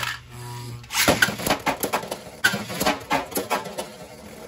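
Beyblade X spinning tops battling in a plastic stadium. A top's steady spinning hum fills the first second, then quick sharp plastic-and-metal clacks repeat as the tops collide with each other and strike the stadium walls.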